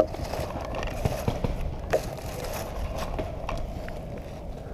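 Handling noise from a paintball marker with a gun-mounted camera and rustling in dry leaves as the player shifts position: irregular light knocks and clicks, a sharper one at the very start and another about two seconds in.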